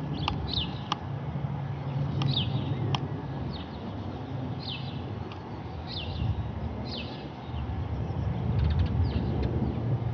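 Distant low rumble of a Boeing 747-8F's four GEnx-2B turbofans as the jet cruises at altitude. A bird repeats short falling chirps over it, and there are a few sharp clicks in the first three seconds.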